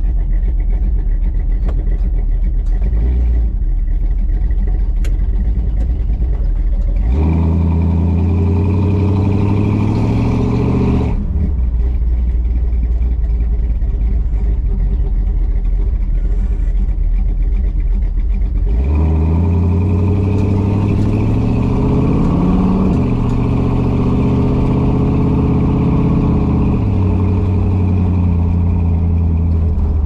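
1968 Dodge Charger's 383 V8 and exhaust heard from inside the car while driving: it cruises steadily, then pulls up through the revs twice, a quarter of the way in and again past the middle, each pull ending in a drop at a gear change. The exhaust is running without a leak, its flange sealed with a doubled gasket.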